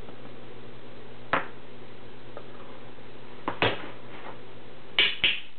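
A few short knocks and clicks from kitchen utensils and containers being handled, about a second and a half in, after three and a half seconds, and a quick double knock near the end, over a steady low hum.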